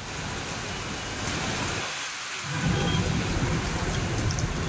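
Heavy rain pouring down in a steady hiss, with a low rumble that grows louder a little past halfway.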